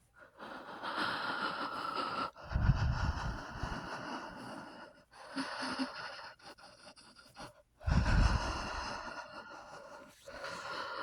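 A person breathing heavily: two slow breaths, each a long drawn-in breath followed by a louder breath out, with a third breath in starting near the end.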